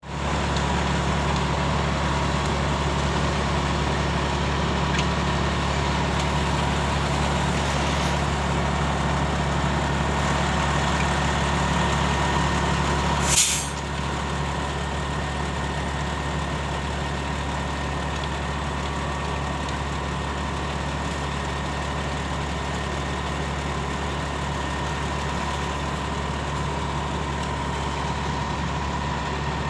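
Concrete pump truck's diesel engine running steadily with a low drone. About thirteen seconds in there is a short, sharp hiss of released air, after which the engine runs a little quieter.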